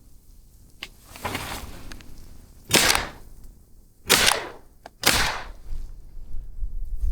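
Three shotgun blasts about a second apart, each sharp and ringing out briefly, preceded by a faint click.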